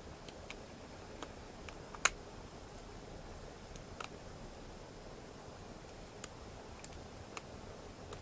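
Small metallic clicks of a lock pick working the mushroom-pin tumblers of a Draper high-security padlock during single-pin picking. There is one sharper click about two seconds in, with fainter, irregular clicks scattered through the rest.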